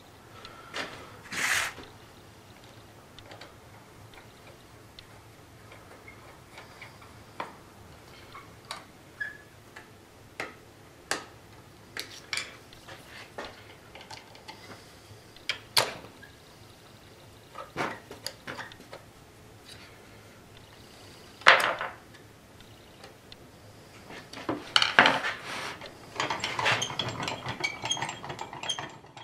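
Metal parts of a lathe slide clicking and clinking as a gib strip is fitted and adjusted with a screwdriver: scattered small taps, one louder clack about two-thirds of the way through, and a run of rattling clicks near the end as the slide's feed handle is turned.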